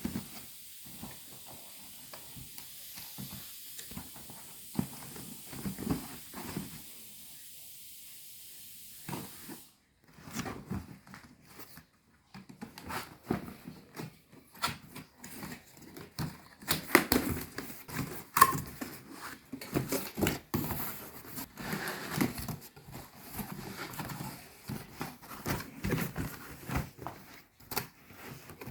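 Steady hiss for about the first nine seconds, then irregular clicks, knocks and rustles of objects being handled, typical of a tool box and its packaging being opened and sorted through.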